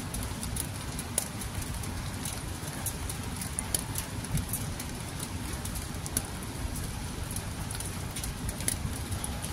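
Rain falling, with drops tapping sharply and irregularly at close range over a steady low rumble.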